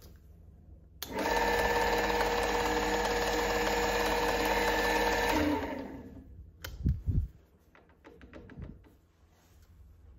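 Fusan FB2 milling head starting up: its single-phase motor and six-speed oil-bath gearbox run at a steady speed with a gear whine, then are switched off and spin down. A couple of low knocks follow.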